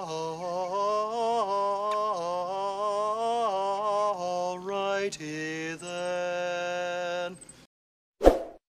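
A man chanting one long, droning meditation note, the pitch shifting a little now and then, breaking off about seven and a half seconds in. A single short pop follows near the end.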